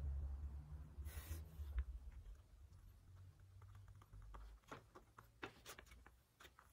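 Paper rustling and crackling as a handmade paper book is picked up and opened, its folded pop-up strips springing out: a brief rustle about a second in, then a run of small sharp crinkles and clicks near the end. A faint low rumble fades away during the first half.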